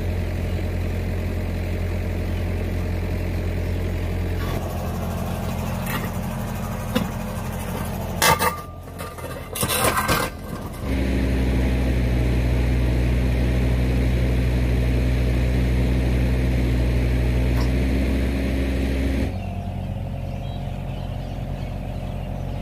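Diesel engine of a Kubota excavator running steadily while its hydraulics turn an auger boring into soil. There is a short burst of clattering noise about eight to ten seconds in. After that the engine note is louder and steady until about nineteen seconds in, when it drops back.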